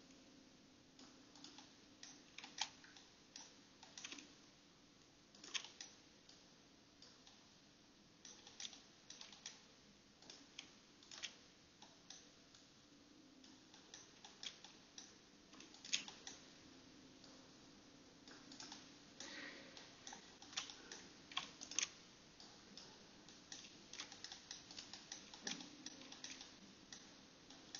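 Faint, irregular clicks of a computer keyboard and mouse in use, some coming in quick clusters, over a low steady hum.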